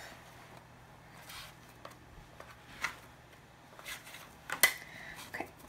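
Plastic bench scraper cutting through bread dough and knocking against a stone countertop: a few light clicks and taps, the sharpest one near the end.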